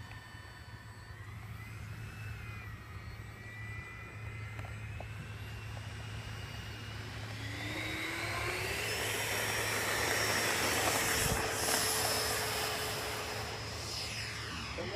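Electric ducted fan of a Freewing 90mm F-16 model jet spooling up for the takeoff run. Its whine rises steadily in pitch and grows louder toward a peak about two-thirds of the way through, then drops in pitch near the end as the jet lifts off and climbs away.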